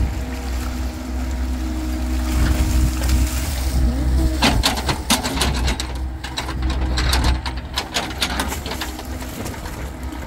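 Mini excavator's diesel engine running with a steady hum, and from about four seconds in a quick run of clanks and scrapes as the steel bucket digs and scoops wet, waterlogged mud.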